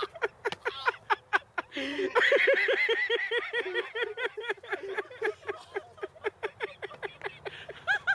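Prolonged laughter: a fast, even run of short 'ha' bursts. A second, higher-pitched laugh joins about two seconds in and fades out a few seconds later.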